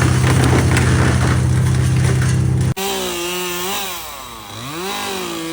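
Chainsaw running at full throttle and cutting through wood. About three seconds in it changes suddenly to a chainsaw being revved up and down several times.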